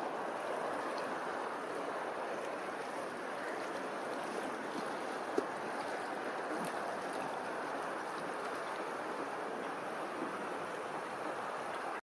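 Steady wash of open water lapping and rippling, with one short click about five seconds in.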